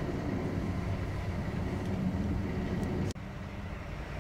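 Semi-truck's diesel engine idling, heard from inside the cab as a steady low hum. The sound cuts out for an instant about three seconds in, then the idle carries on a little quieter.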